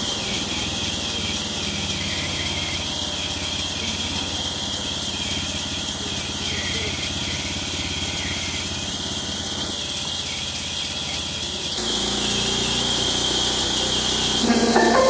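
Wood-sawing machine running steadily, with an engine-like drone and a steady high whine; the low drone changes abruptly about twelve seconds in. A short voice or call is heard near the end.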